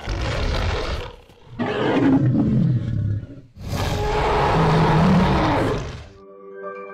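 Film sound effect of a Spinosaurus roaring in three long bursts: the second falls in pitch, and the third is the longest and loudest. Soft chiming music notes start just before the end.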